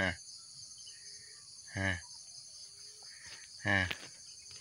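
Steady high-pitched drone of insects, with three short, low vocal sounds from a man's voice about two seconds apart.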